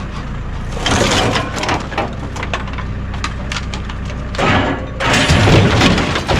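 A clatter of short knocks and cracks over a steady low hum, with a louder rough stretch near the end.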